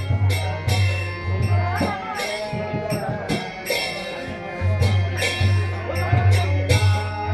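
Devotional kirtan music: jingling metal percussion strikes about twice a second over a drum and a low steady drone.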